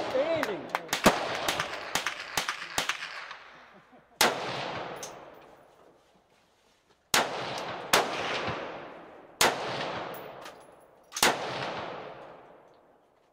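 Rifle gunfire from several shooters: a rapid string of about eight shots over the first three seconds, then five single shots spaced one to three seconds apart. Each shot trails off in a long echo.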